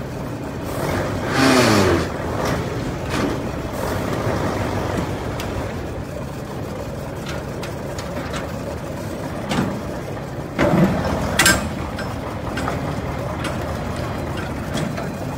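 Steel shipping-container door hardware being worked: a metal scrape with a falling squeal about a second and a half in, then a creak and a sharp metallic clank about eleven seconds in as a door is freed and swung open, over a steady low background rumble.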